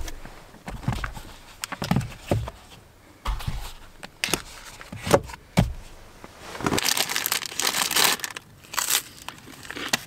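Rummaging inside a car: a run of soft knocks and bumps as things are moved about, then, about seven seconds in, the crinkling of a plastic snack packet being handled.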